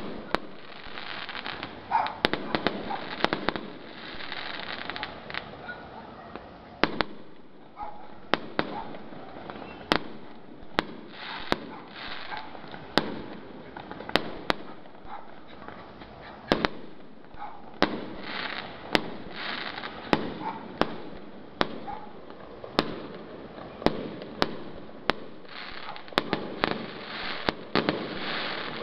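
Aerial fireworks display: shells bursting in sharp bangs, roughly one a second and at times in quick clusters, over stretches of steady rushing noise.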